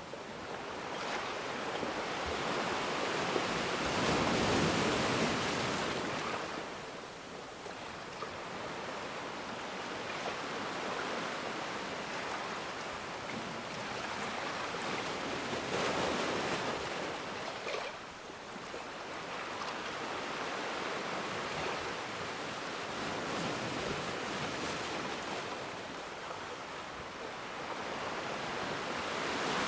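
Ocean waves washing onto the shore in slow swells: a steady rush of surf that builds and falls back, with the biggest surges about four seconds in, around the middle, and again at the very end.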